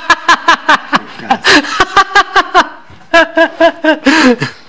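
A man laughing hard in quick repeated bursts, in two bouts with a short break in the middle.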